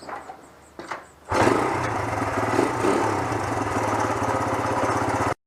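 An engine running with a fast, even beat, loud from about a second in and cutting off abruptly near the end.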